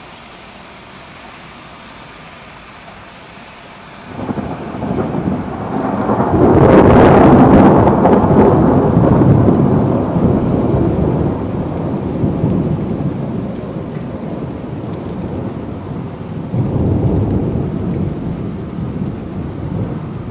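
Thunderstorm: steady rain hiss, then about four seconds in a thunder peal breaks in, builds to its loudest a few seconds later and rolls away as a long rumble, with a second swell of rumbling near the end.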